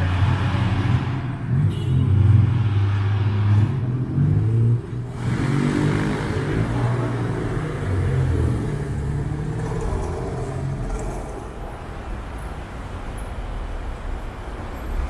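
Road traffic: motor vehicles running close by with a steady low engine hum, louder in the first two-thirds and easing off over the last few seconds.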